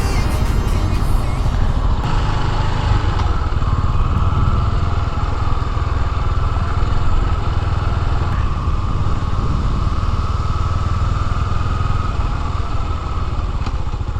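Yamaha SR400's air-cooled single-cylinder four-stroke engine running steadily under way, with a heavy low rumble throughout.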